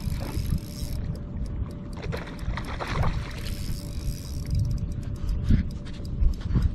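A hooked bass splashing at the surface beside a boat as it is reeled in, over a steady low rumble of wind and water on the boat, with a few short knocks.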